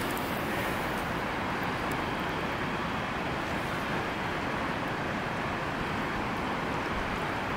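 Rushing water of a trout stream: a steady, even rush.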